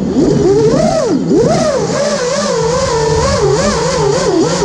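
Brushless motors and propellers of a 5-inch FPV freestyle quadcopter, heard through its onboard camera, whining with a pitch that rises and falls quickly and constantly as the throttle is worked.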